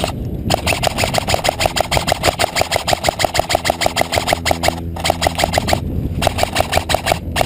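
Airsoft gun firing on full auto in long bursts, a rapid even clatter of about eight shots a second over a motor whine, with three brief pauses near the middle and end.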